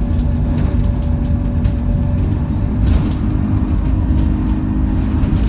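Alexander Dennis Enviro200 single-deck bus heard from inside while under way: the diesel engine runs with a steady low rumble and hum, with a faint steady whine above it.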